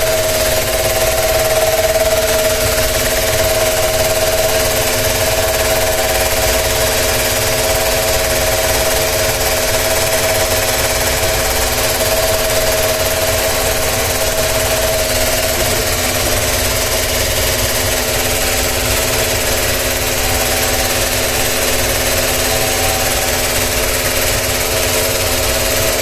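An electric motor running steadily and making an abnormal noise: a constant mid-pitched whine with several other steady tones over a dense mechanical rattle.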